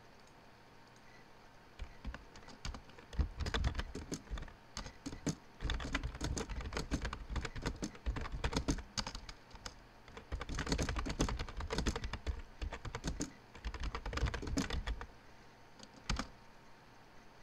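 Typing on a computer keyboard: runs of quick keystrokes with short pauses between them, starting about two seconds in, then a single keystroke near the end.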